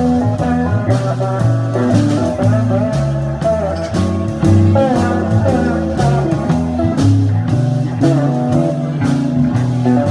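Live blues band playing: electric guitars, with a lead line of bent notes over a steady low line and drums keeping time.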